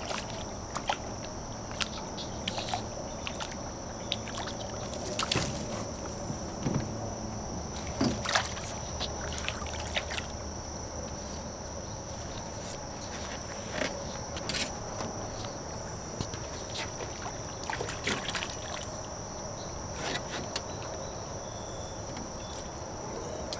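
A hooked channel catfish thrashing at the water's surface beside an aluminium boat, with irregular splashes every few seconds. A steady high-pitched insect drone runs underneath.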